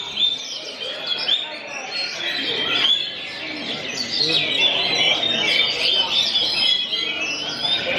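Kacer (oriental magpie-robins) singing in a songbird contest: a dense, continuous stream of rapid whistles and chirps from several birds at once.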